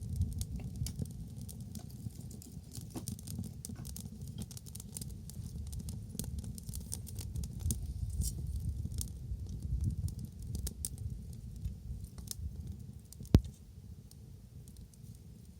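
Wood bonfire crackling, with many small irregular pops and snaps over a low steady rumble. One single sharp pop, much louder than the rest, comes a little past two-thirds of the way through.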